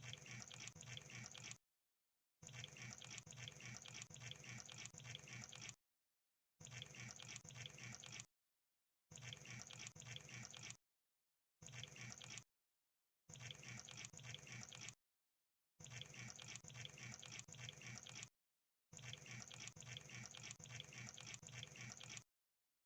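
Crab sound effect: quiet bursts of dense, fine wet crackling clicks, eight bursts of one to three seconds each, broken by short dead silences.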